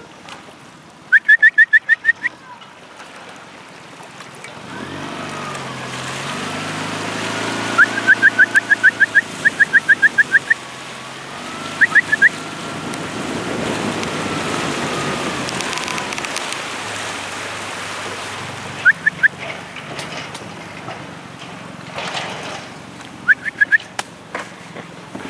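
Dog yelping in quick runs of short, high-pitched yelps, several times over, with a boat motor running under it through the middle.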